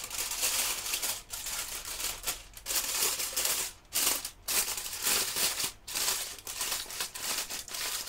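Aluminium foil crinkling and rustling as it is folded and pressed around food by hand. The sound comes and goes with brief pauses.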